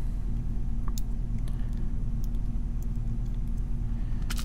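A steady low hum runs throughout, with a few faint, sharp clicks of small metal lock parts (pins, springs and tools) being handled as the next pin stack is taken out of a brass padlock. The clearest click comes about a second in, and a double click comes near the end.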